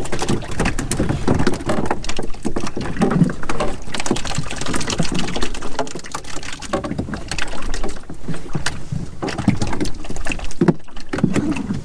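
Irregular knocks and clatter aboard a small open boat, with water slapping the hull and a steady low wind rumble.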